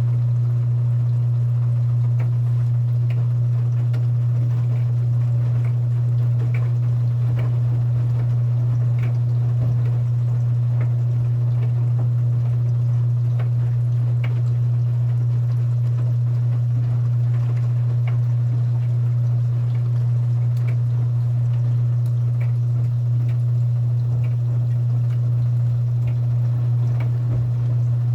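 Front-loading washing machine running, with a loud, unchanging low hum and water sounds, plus scattered faint clicks.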